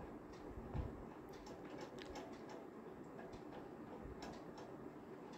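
Faint sizzling of a tomato-onion masala with green peas frying in a kadhai, with scattered small ticks and pops.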